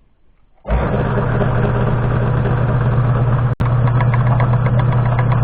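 Milling machine spindle motor switched on under a second in, then running steadily with a strong low hum. A split-second break interrupts it a little past halfway.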